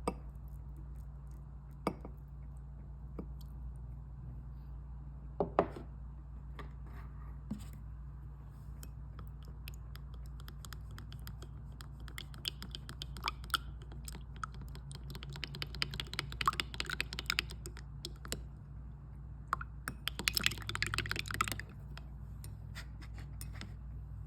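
A scatter of small, sharp clicks and taps that gather into runs of rapid clicking several times, over a steady low hum.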